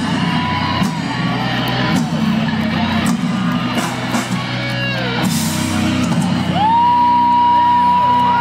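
Live rock band playing, electric guitar and singing, heard from inside the crowd in front of an outdoor stage. About five seconds in the dense music thins, and near the end a long, high, held voice rises over it.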